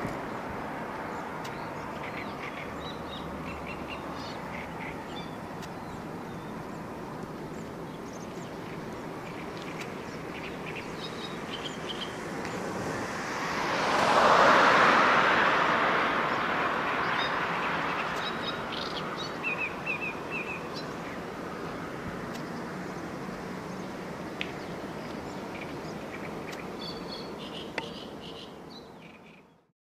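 Distant Airbus A350-900 jet airliner's engines at low power as it slows and turns off the runway after landing; the noise swells to a peak midway and then eases. Small birds chirp on and off over it.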